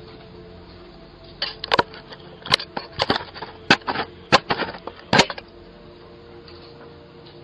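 A rapid, irregular series of about ten sharp bangs over some four seconds, heard through a doorbell camera's microphone.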